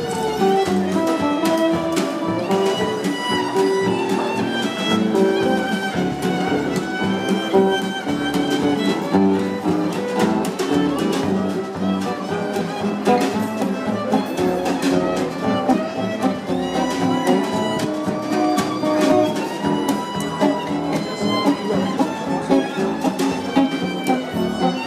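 Fiddle and guitar playing a folk tune together: a quick run of bowed fiddle notes over strummed guitar.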